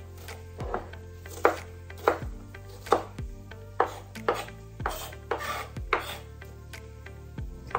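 Kitchen knife chopping onion on a wooden cutting board: a string of uneven knocks, roughly one to two a second.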